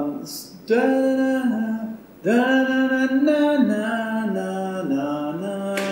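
A man singing a short suggested melody line, in two phrases of held notes that step downward in pitch.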